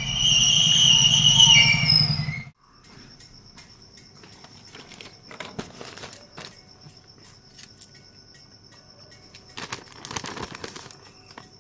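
A loud sound with high ringing tones lasts about two and a half seconds and slides down at its end. Then crickets chirp steadily and faintly, with a short patch of rustling and knocks about ten seconds in.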